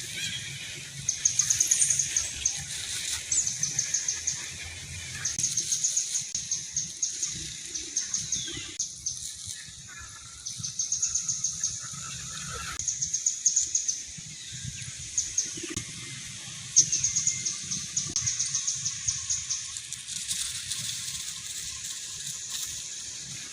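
Outdoor ambience of high-pitched, rapid chirping trills that repeat every second or two, over a steady low rumble.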